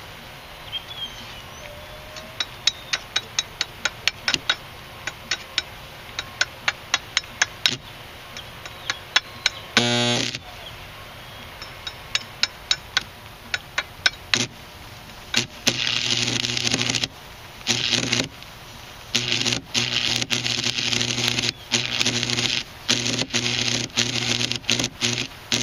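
Homemade AC stick welder built from two microwave oven transformers, arc welding. For the first nine seconds or so there are only short sharp ticks as the electrode is struck against the steel and the arc sparks and dies. A brief burst of arc comes about ten seconds in. From about sixteen seconds the arc holds: a loud crackling buzz over a steady hum, cutting out for moments now and then.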